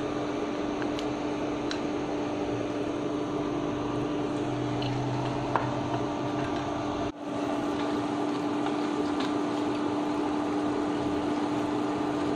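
Battered sweet potato sticks sizzling and bubbling in hot oil, with a few scattered crackles, over a steady hum from the induction cooktop. The sound breaks off briefly about seven seconds in.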